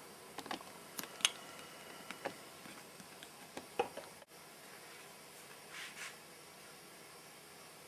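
Faint scattered clicks and taps over a steady hiss: handling noise picked up by a camcorder's built-in microphone. The sharpest tap comes just over a second in, with a soft rustle near six seconds.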